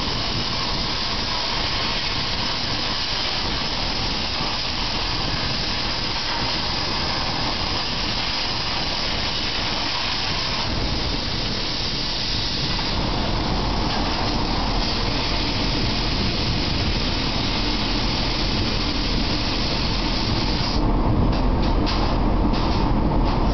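Steady hiss of a PlasmaCAM CNC plasma torch cutting 18-gauge sheet metal, its tone shifting somewhat after about ten seconds. Near the end, cloth rubs over the microphone in irregular scuffs.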